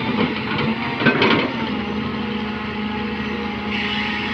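Volvo crawler excavator's diesel engine running steadily while it digs in a trench, with a few knocks about a second in and a higher hiss joining near the end.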